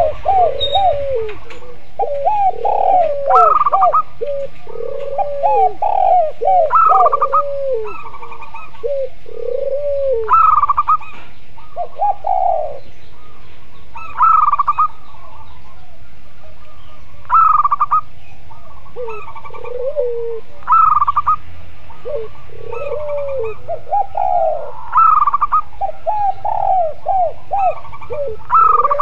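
Spotted doves, zebra doves and Barbary doves cooing together, their calls overlapping: lower arching coos and higher, clipped notes, in phrases that recur every three to four seconds.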